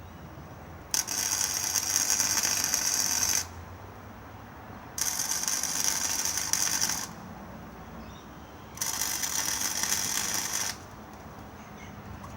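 Electric arc welder laying tack welds on a cart frame: three bursts of sizzling arc crackle, each about two seconds long, with short pauses between them.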